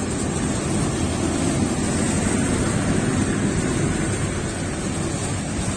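Bangladesh Railway intercity train of PT INKA passenger coaches rolling past while pulling out of the station: a steady rumble of wheels on rail.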